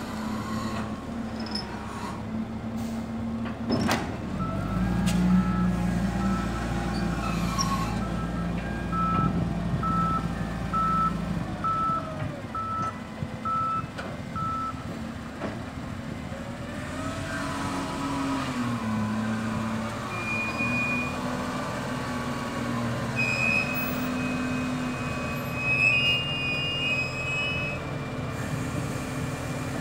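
SDLG wheel loader's diesel engine running and revving up and down as it manoeuvres with a load, with its reversing alarm beeping about once a second from about five seconds in until about fifteen seconds in.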